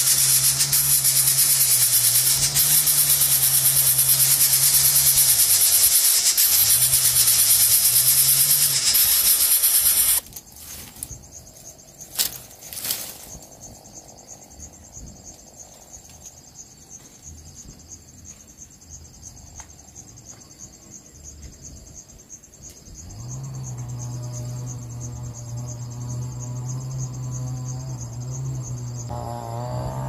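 Loud, steady high-pitched hiss of insects that cuts off abruptly about a third of the way through. It leaves a faint, steady high insect trill, with a low hum and music coming in near the end.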